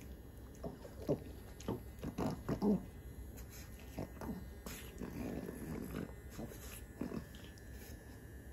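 A Pekingese making short, irregular snuffling sounds close by, bunched and loudest between about one and three seconds in, with a few more scattered later.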